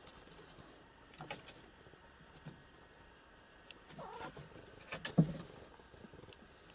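A cat gives a short meow about four seconds in, among a few faint ticks and knocks. A sharp bump a little after five seconds is the loudest sound.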